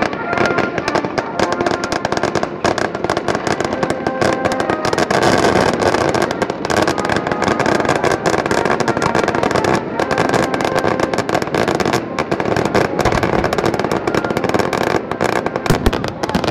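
Fireworks display: a continuous, dense crackling of many bursts with no break.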